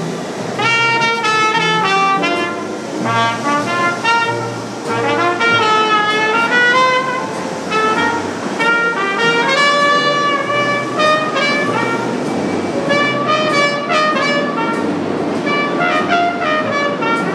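Trumpet playing a jazz tune over a low bass line, with the noise of a subway train moving past beneath the music.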